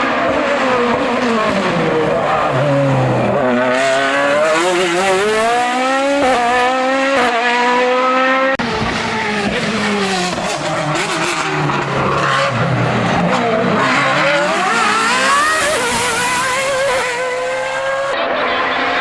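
Race car engine at full effort on a hill climb. It revs up through the gears with several quick upshifts in the middle, each a sudden drop in pitch, and the note falls and rises again as the car slows for bends and accelerates out.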